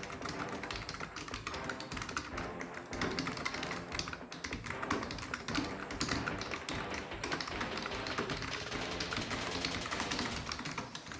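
Fast, continuous typing: a rapid, irregular stream of key clicks with no pauses.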